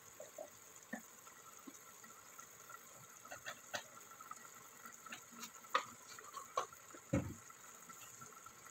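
Fettuccine in cream sauce simmering in a pot, with scattered soft pops and clicks, and a low thump about seven seconds in.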